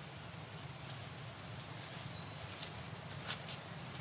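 Forest ambience: a steady low hiss, with a short high bird chirp that rises at its end about two and a half seconds in, and a single sharp click a little after three seconds.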